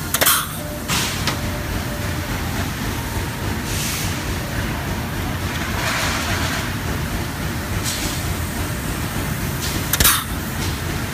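Cordless power screwdriver driving screws into a sheet-metal bracket frame in short bursts: one near the start, a smaller one about a second in, and another near the end. A steady low rumble sits under it throughout.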